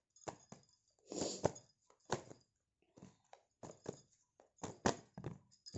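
Tarot cards being shuffled and drawn by hand: soft swishes and a scatter of sharp clicks.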